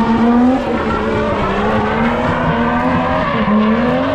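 Drift cars' engines revving hard on track, the pitch climbing and dipping over and over as the throttle is worked.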